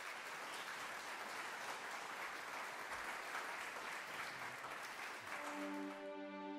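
Audience applauding: steady, dense clapping from a large crowd. Near the end, soft music with held notes fades in over it.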